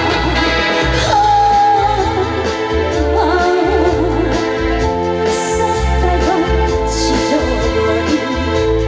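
A trot song performed live: a woman singing with a wavering vibrato over a band backing with a steady bass line and cymbal splashes.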